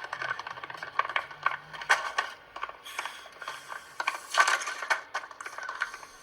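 Rapid, irregular sharp clicks and rattles, like a small metal mechanism being worked, with two short hissing rustles partway through.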